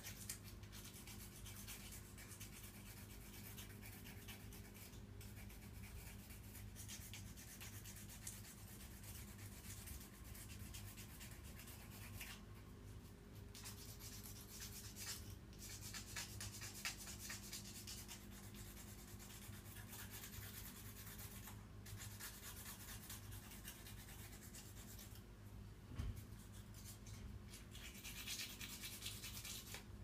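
A nail file scraping over a cockatoo's toenail, faint and in stretches of repeated strokes with a few short pauses, as the overgrown nail is filed down by hand.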